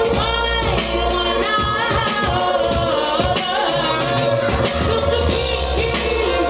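Band music with a sung vocal melody over a steady beat and heavy bass.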